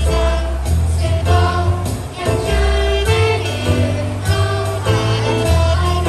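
A children's choir singing a Christian praise song in unison over backing music with a bass line and a steady beat.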